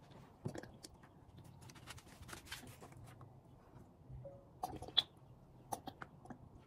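Plastic oil bottle handled in gloved hands: faint crackling and small clicks, with a sharper click about five seconds in.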